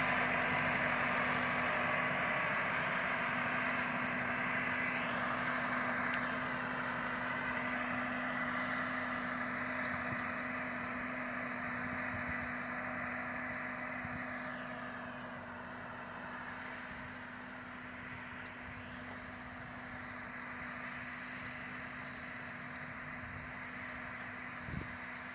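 Massey Ferguson 375 tractor's four-cylinder diesel engine running steadily under load as it pulls a land-levelling scraper across a field. The sound fades gradually as the tractor moves away.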